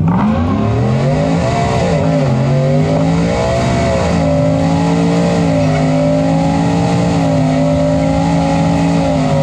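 2020 Ford F-150's 5.0L Coyote V8 at full throttle, heard from inside the cab. The revs climb, drop back at upshifts about two and four seconds in, then hold high and steady, with a strong rushing hiss over the engine note.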